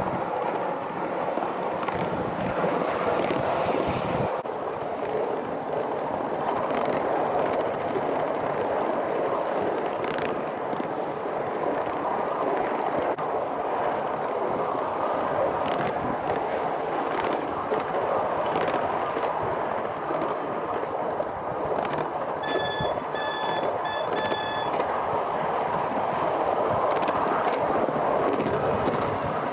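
Miniature railway train rolling along its track: a steady rumbling rattle with irregular clicks from the wheels and rails. Near the end, three short high-pitched tones sound in quick succession.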